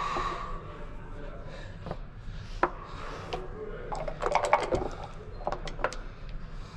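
Backgammon checkers clicked down on the board, then dice shaken in a dice cup and thrown onto the board: a quick cluster of rattling clicks a little past halfway, with a few more clicks after it.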